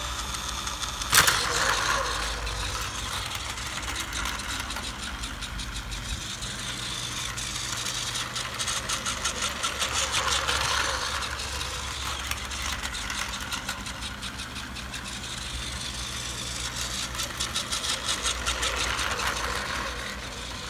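Battery-powered Plarail toy train (225 series Special Rapid Service) running on plastic track: its small motor and gearbox whirring steadily, with rhythmic clicking from the wheels on the track that grows louder twice as the train passes close. A sharp click about a second in.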